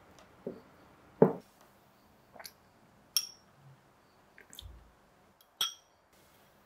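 Silicone spatula working a cream cheese mixture in a glass mixing bowl: a handful of separate soft knocks and squishes, the loudest a dull knock about a second in. Two sharper ringing clinks of glass, at about three seconds and near the end.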